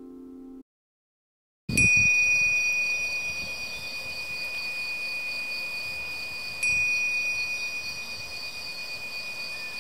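A small bell or chime struck twice, about five seconds apart, each stroke ringing on in a long, steady, high tone that slowly fades. Faint background hiss runs under it.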